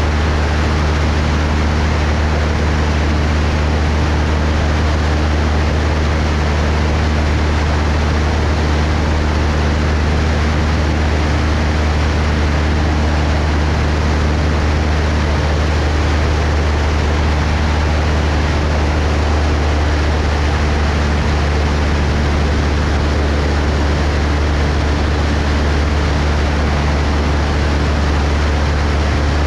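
Cessna 172's piston engine and propeller droning steadily in cruise, a constant low hum with an even rush of air noise over it.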